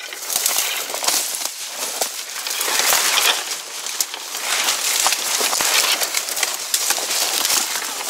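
Footsteps pushing through dense grass and brush: continuous rustling and crunching of stems and twigs, with many small snaps.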